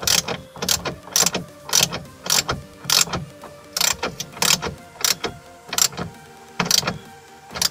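Socket ratchet wrench clicking in short bursts, a little under two a second, as the sunroof's mounting bolts are tightened into the car roof.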